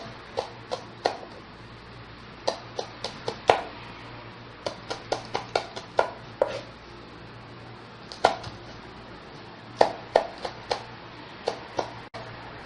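Knife chopping green chillies on a cutting board: sharp taps in irregular runs, about three or four a second, with short pauses between runs.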